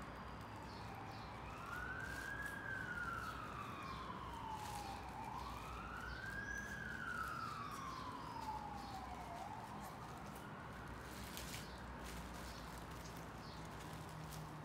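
Emergency vehicle siren wailing faintly, its pitch slowly rising and falling about every four seconds, fading out about ten seconds in. A few light ticks of handling are heard underneath.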